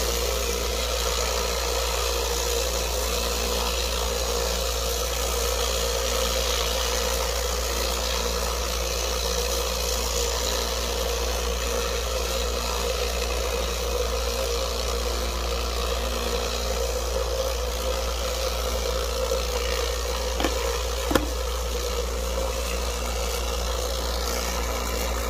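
Lot-O vibratory rock tumbler running, a steady hum as its barrel of agates vibrates in 1000-grit aluminum oxide and borax. Two brief knocks about twenty seconds in.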